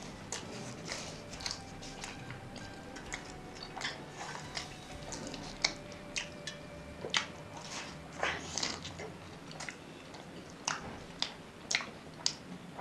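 Close-up chewing of a big, crispy potato-filled samosa: irregular crunches and mouth clicks.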